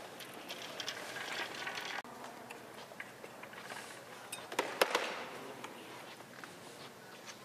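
Background noise of a large hall, broken by a few sharp clicks and knocks, the loudest about five seconds in. The background changes abruptly about two seconds in.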